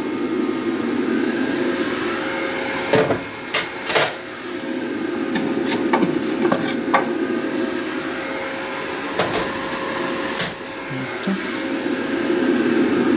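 Stainless steel tissue-cassette baskets clinking and knocking against each other and the metal retort as they are lifted out of a Leica HistoCore Pearl tissue processor. There are several sharp metallic clinks, bunched around three to four seconds in and again later, over a steady hum.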